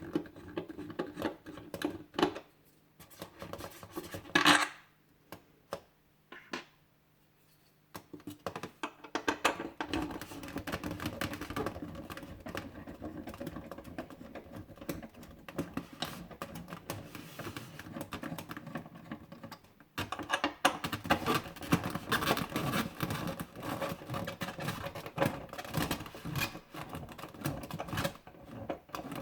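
Hands unpacking a boxed diecast model car: packaging rustling and scratching with many small clicks and taps, pausing briefly a few seconds in and growing busier near the end.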